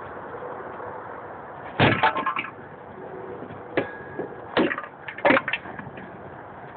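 A handful of sharp knocks and cracks against wooden deck boards: a quick cluster about two seconds in, then single knocks near four, four and a half and five seconds.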